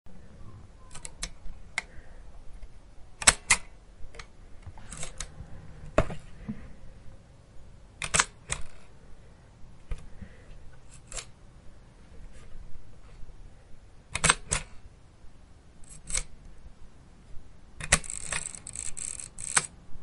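A 1930s folding camera being worked by hand: a series of sharp mechanical clicks, several in close pairs, with quiet gaps between. Near the end comes a rapid run of clicks lasting under two seconds.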